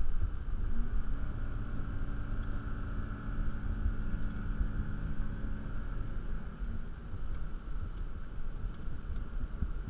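Car driving on a paved road, heard from inside the cabin: steady engine and road rumble, with a steady engine hum coming up about a second in and fading after six seconds.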